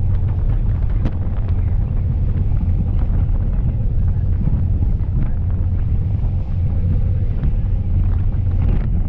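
Steady wind buffeting the microphone on the open deck of a water taxi running at speed, a loud low rumble with the boat's engine and rushing water underneath.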